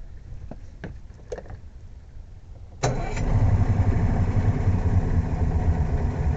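A few light clicks and knocks, then about three seconds in a Yamaha two-stroke outboard motor catches abruptly and runs steadily at idle, starting again now that the fuse blown by reversed battery cables has been replaced.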